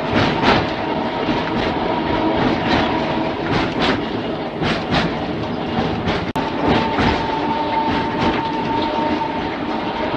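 Mumbles Railway electric tramcar running along the track, its wheels clicking over the rail joints against a steady running noise and a steady whine. The sound cuts out for an instant a little past the middle.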